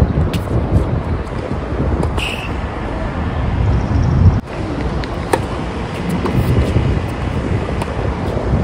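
Wind buffeting the camera microphone in a loud, uneven rumble, with a few sharp tennis racket-on-ball hits of a rally over it, the clearest about five seconds in.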